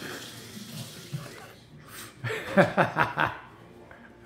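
A person laughing in a few short chuckling bursts about two seconds in.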